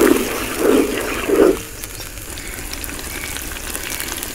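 Sambal chili paste cooking in a wok: a spatula stirring and scraping it in three strokes, then about a second and a half in it settles to a gentle sizzle with scattered small pops and bubbling. The paste is being cooked down in oil until the oil separates.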